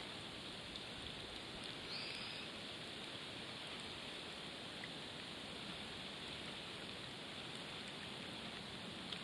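Steady hiss of open-air lakeshore ambience, with one short bird call about two seconds in and a faint tick near the end.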